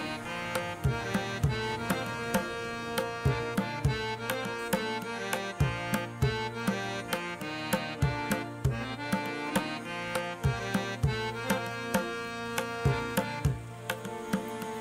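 Background music: a melody of held notes over a steady drum beat.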